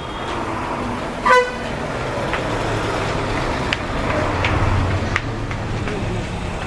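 A single short vehicle horn toot about a second in, over steady street traffic with engines running.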